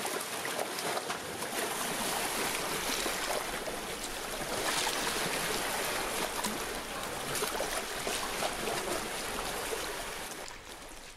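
Small sea waves washing in between shoreline rocks and rushing over a rocky ledge, a steady churning wash that swells and ebbs. It fades out near the end.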